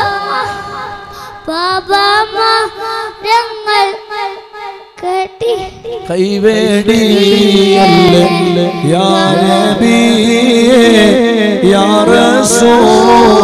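A boy singing an Islamic devotional salawat song in Malayalam into a microphone, in long ornamented phrases. About six seconds in, a man's lower voice joins and the two sing together.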